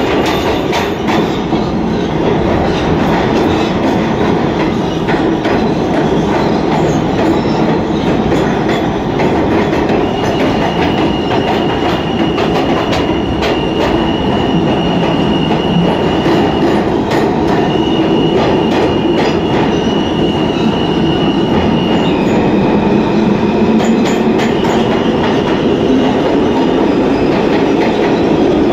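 Ride noise inside an R160A New York subway car running at speed on an express track: a steady loud rumble with the click of wheels over rail joints. A thin high whine comes in about ten seconds in and holds in long stretches, breaking off and returning a few times.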